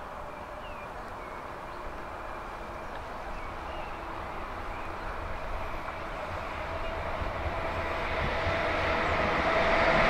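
Red DB electric locomotive approaching on the track, its rumble and a steady whine growing louder as it draws near.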